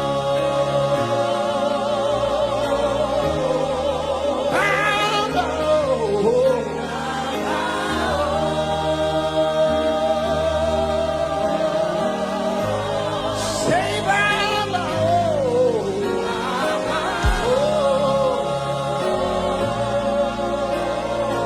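Many voices singing a slow gospel worship chorus together with a live band, in long held notes with a few rising vocal runs over a steady bass line.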